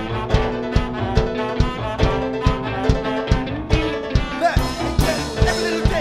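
Live band playing a song: a steady fast drum beat of a little over two hits a second under held bass and chord notes, with a sliding melody line coming in about four and a half seconds in.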